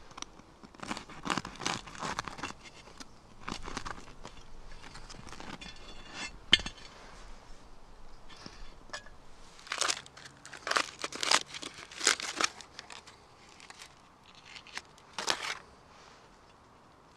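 A crusty, freshly baked loaf being torn apart by hand, the crust crackling and crunching in several bursts. A single sharp click comes about six and a half seconds in.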